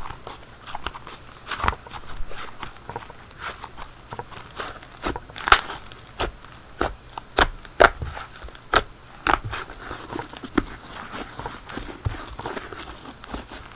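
Hands kneading and squishing homemade glue slime, giving irregular sharp clicks and pops, with a few louder pops past the middle.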